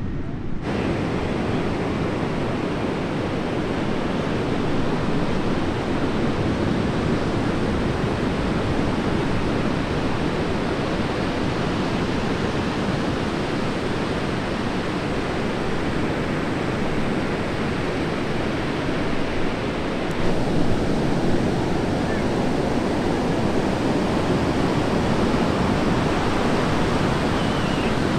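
Breaking ocean surf from a hurricane swell: a steady, even rush, a little louder about twenty seconds in.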